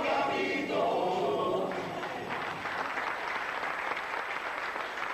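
A group of voices singing the final held notes of a number together, stopping about two seconds in, followed by audience applause.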